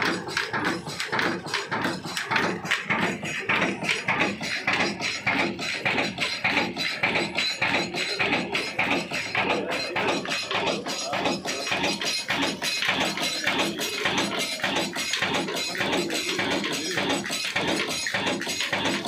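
Old horizontal diesel oil engine running steadily, a rapid, even clatter of mechanical knocks.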